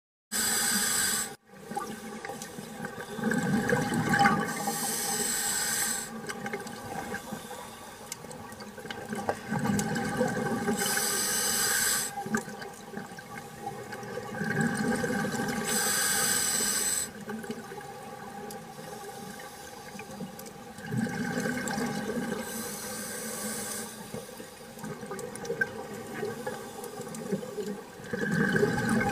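Scuba diver breathing through a demand regulator underwater: a rush of exhaled bubbles alternates with a hissing inhale, one breath about every six seconds.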